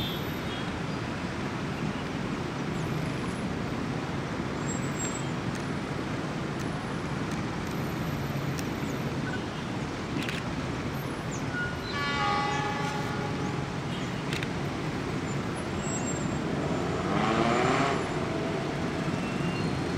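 Steady city street traffic noise from cars and motorbikes. A horn toots about twelve seconds in, and an engine revs up with rising pitch near the end.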